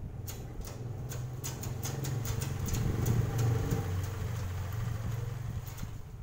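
A vehicle engine passing close by, its hum growing louder to a peak a little after three seconds in and then easing off. A string of sharp clicks and taps sounds over it.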